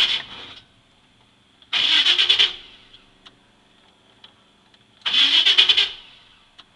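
A Chevy's starter cranking the engine in three short bursts of about a second each, without the engine catching, as the worn ignition switch is wiggled: the switch only makes contact when held in place.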